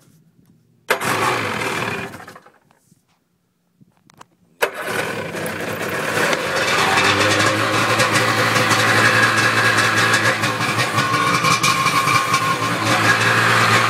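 1996 Sea-Doo XP's two-stroke Rotax engine starting after sitting about a month: a first try of about a second and a half stops short. About three and a half seconds in, the engine catches suddenly and runs steadily.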